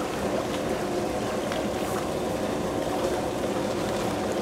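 Water running into a koi pond, a steady splashing and gurgling.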